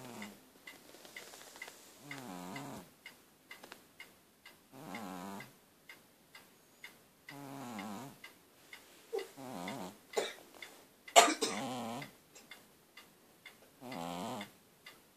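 Domestic cat snoring in its sleep: a short pitched snore roughly every two and a half seconds, about six in all. A steady faint ticking runs under it, and there is one loud sudden noise about eleven seconds in.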